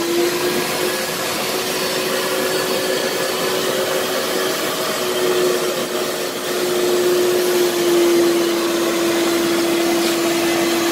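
Kärcher Puzzi 10/1 spray-extraction cleaner's suction motor running steadily, drawing dirty water up into its recovery tank: an even rush of air with one steady hum.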